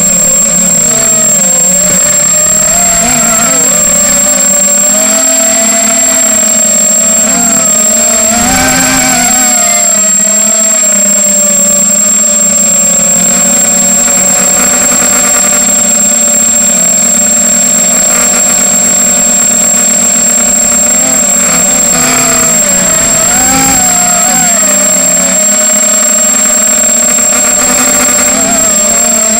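Motors of an H250 FPV racing quadcopter buzzing steadily, their pitch wavering up and down as the throttle changes, with a constant high whine over them.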